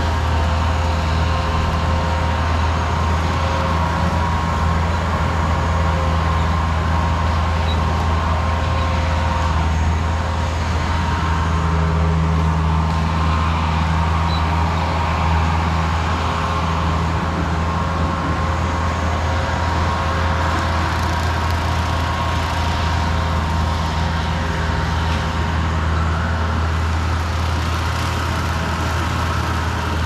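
Bobcat 873 skid steer's diesel engine running steadily while it works an EZ Mow 72-inch brush cutter through grass and undergrowth: a deep, even hum with a thin, steady whine over it.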